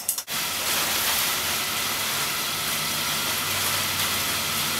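Melted margarine sizzling in a pan on the stove: a steady, even hiss that starts about a quarter of a second in.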